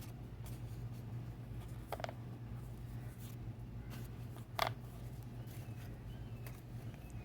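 Quiet room tone with a steady low hum, broken by a few soft taps and ticks of paper cards being handled, the clearest about halfway through.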